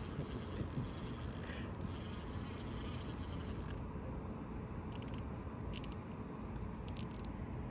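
Spinning fishing reel being cranked, its gears and clicker ratcheting, against a line that is stuck. A high hiss stops about halfway through, and separate sharp clicks follow.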